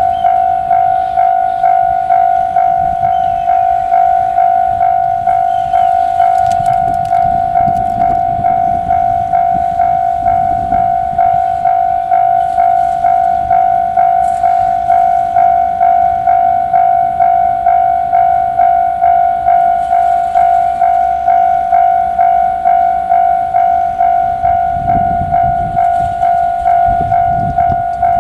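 Japanese level-crossing warning bell ringing, a steady pitched ding repeating evenly about twice a second. A low rumble swells under it about a quarter of the way in and again near the end.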